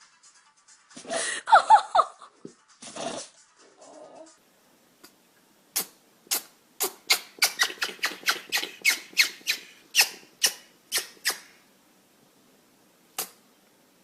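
A small pet sneezing. It starts with a few noisy sneezes, one with a squeak in it. After a pause comes a quick run of about fifteen short, sharp sneezes over some five seconds, then one more near the end.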